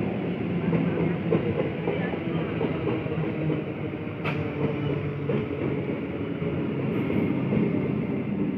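Eastern Railway EMU electric local train moving past at close range: a steady rumble of wheels on rail and running gear with a low hum. A single sharp click comes about four seconds in.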